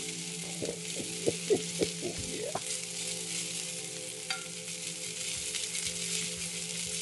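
Blackened yellowfin tuna steaks sizzling steadily in butter in a cast iron pan, with a single sharp click about four seconds in.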